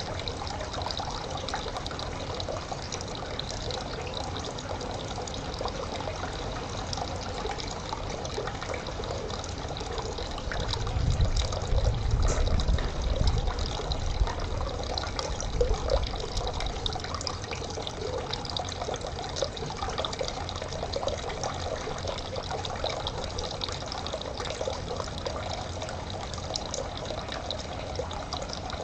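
Water trickling and splashing steadily in a small stream. About ten seconds in, a low rumble rises for around five seconds and then fades.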